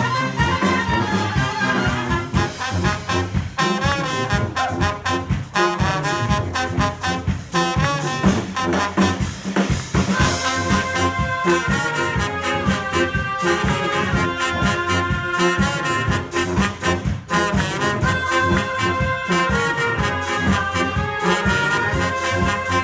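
A live brass band playing: trumpets, sousaphone and tuba over a drum kit, with an accordion, in an up-tempo tune with a steady beat.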